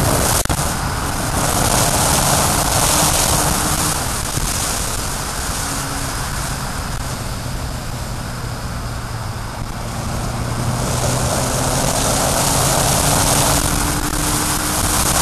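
Wind rushing over a helmet-mounted action camera on a moving motorcycle, with the engine's hum underneath. The wind noise eases in the middle and builds again near the end.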